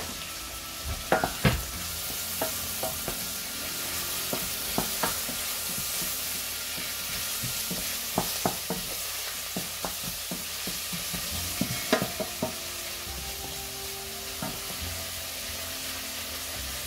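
Chopped onions sizzling steadily as they fry in a stainless steel saucepan, stirred with a wooden spoon that knocks sharply against the pan now and then.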